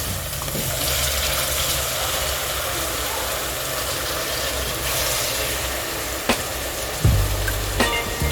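Onion and tomato frying in hot oil in a pan, a steady sizzle, with a couple of sharp knocks and a low thump near the end.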